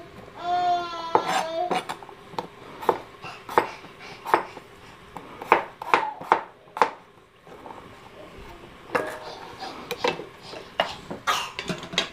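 Kitchen knife chopping raw potatoes on a cutting board: sharp, irregular knocks, about one or two a second, with a lull a little past the middle. About half a second in there is a brief high-pitched voice. Near the end a utensil clatters in a metal pot.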